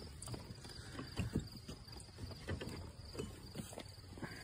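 Several footsteps on a loose gravel and stone trail, irregularly spaced, over a steady high insect chirring.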